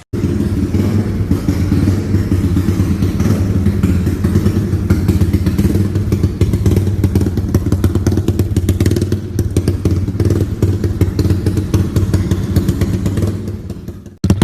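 Yamaha Y15ZR's 150 cc single-cylinder engine idling steadily through an aftermarket exhaust, with a fast clattery rattle over the exhaust note.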